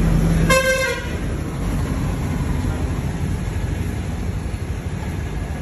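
A single short vehicle horn toot about half a second in, over a steady rumble of road traffic.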